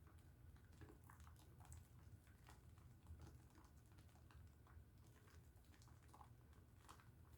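Faint wet squishing and small irregular crackles of a bar of pink Dove soap being lathered in the hands.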